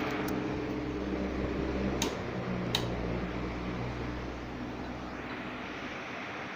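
Siam Circul-Aire 24" fan's six-pole induction motor running with a steady electrical hum and a rush of air. Two sharp clicks come about two seconds in, and the hum and running noise then fade away over the next few seconds as it winds down.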